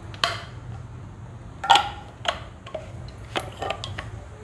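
Scattered sharp clicks and light metallic taps from a wok of oil heating on a gas stove, the loudest about two seconds in, over a steady low hum.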